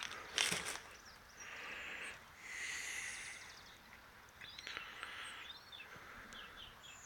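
Faint outdoor background with a few thin, wavering high chirps from small birds and some brief rustling; no engine or starter motor is heard.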